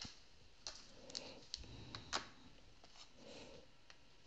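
Light, scattered clicks and taps of hard plastic being handled on a table: a UV nail lamp being lifted off and moved aside and a clear plastic resin mould tray being touched, with the sharpest click a little after two seconds in.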